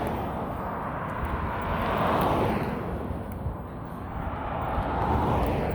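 Outdoor noise with a low rumble of wind on the microphone, swelling and fading twice, about two seconds in and again near the end.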